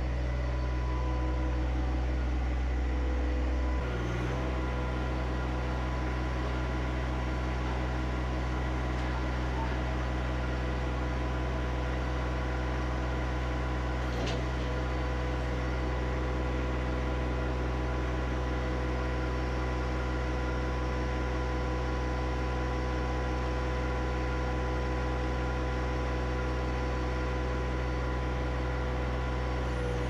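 John Deere 1025R compact tractor's three-cylinder diesel engine idling steadily, with a slight change in its low tone about four seconds in.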